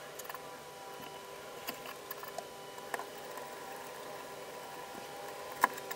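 Hand-cranked eggbeater drill boring a hole through a wooden board: a faint, steady whir of the turning gears and bit, with scattered light clicks and one sharper click near the end.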